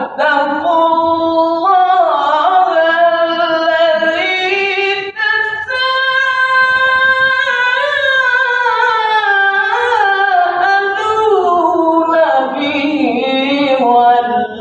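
A solo male Quran reciter chanting in the melodic tilawah style, unaccompanied. He holds one long ornamented phrase in a high register that rises and then falls, with a brief break about five seconds in. He is reciting while suffering from a cough and flu.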